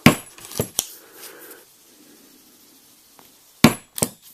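White plastic mallet striking a steel drive hole punch through poster-stock card: one sharp blow at the start, two lighter knocks just after, then two more sharp blows near the end, under half a second apart.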